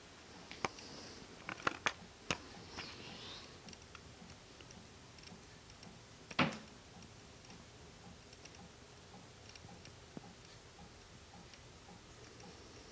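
Quiet room tone with a few light, scattered clicks in the first couple of seconds and one louder knock about six and a half seconds in.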